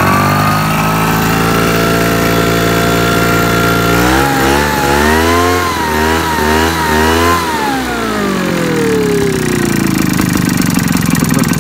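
The 60cc two-stroke engine of a backpack mist blower, warm and just started, climbs to a steady speed. About four seconds in it is revved up and down several times on the throttle lever, then it drops back to a low idle.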